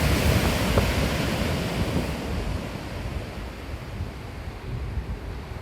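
Rough, heavy surf stirred up ahead of a typhoon: a wave breaks and washes out, its hiss fading over the first few seconds. Wind buffets the microphone with a low rumble throughout.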